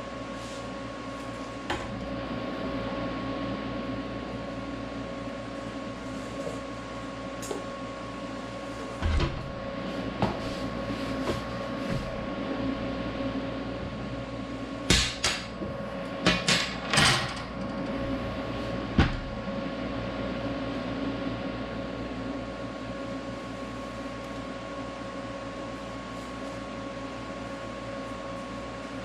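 Steady hum of shop equipment with scattered knocks and clanks of metal being handled. The knocks come in a cluster about halfway through, with single ones just before and after.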